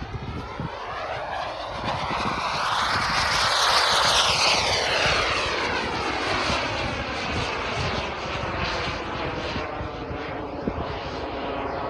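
Scale SAAB 35 Draken RC model jet flying past, its engine whine growing louder to a peak about four seconds in, then dropping in pitch and fading as it moves away. Wind buffets the microphone throughout.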